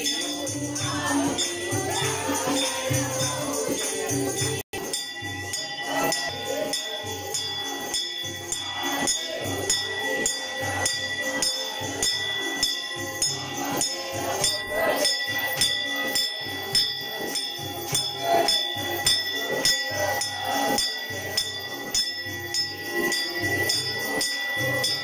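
Devotional music: singing over a steady, even beat of jingling percussion, with a brief break in the sound about five seconds in.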